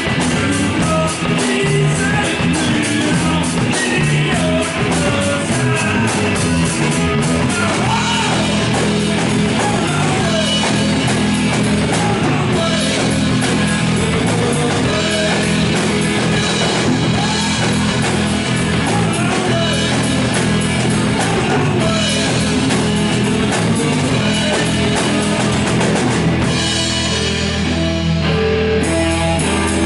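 A rock band playing live, with electric guitar, bass and drum kit. Near the end the high cymbal-like hiss drops away briefly and the guitar carries on.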